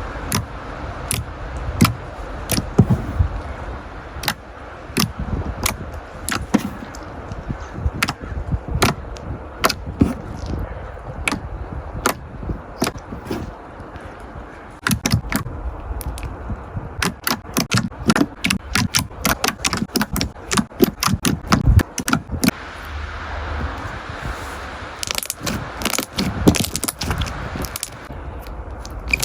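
Slime being squeezed and poked, giving many sharp clicks and pops at an uneven pace, coming thick and fast in stretches around the middle and again near the end.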